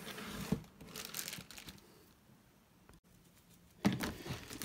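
Foam sponge rubbing over a leather briefcase, with faint rustling and crinkling of a plastic sheet, then a quiet stretch. A sharp knock just before four seconds in and handling noise follow as the briefcase is moved and set on its end.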